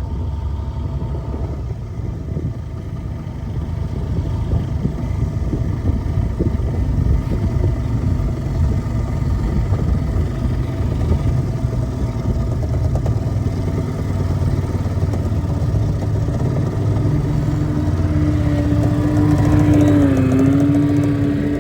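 Small boat motor running underway, a steady low rumble. Near the end the engine's tone comes through more clearly, dipping and then rising in pitch.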